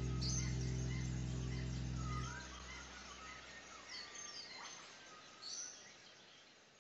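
Small birds chirping in forest, with short high calls scattered throughout. A low sustained music chord stops about two seconds in, and the birdsong then fades out.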